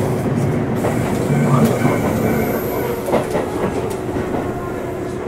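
Tobu Railway commuter train running along the Kiryu Line: steady running noise with a constant low hum and a few rail-joint clacks, the sharpest about three seconds in.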